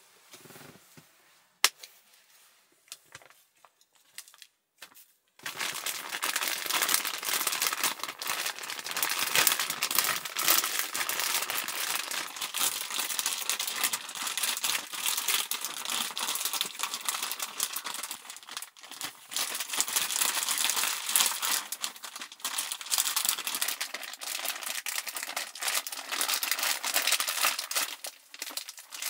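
Plastic zip-top bag crinkling continuously as the minced meat inside is squeezed and kneaded by hand. The crinkling starts about five seconds in, after a few faint clicks.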